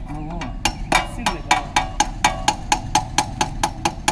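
Rapid, evenly spaced knocks with a short metallic ring, about four a second, starting about half a second in.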